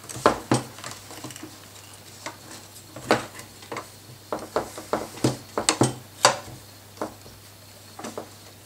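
Metal add-on weight block clicking and knocking against the chassis of a Huina 580 RC excavator as it is worked into a tight space by hand. The knocks come irregularly, the loudest about three seconds in and just after six seconds in.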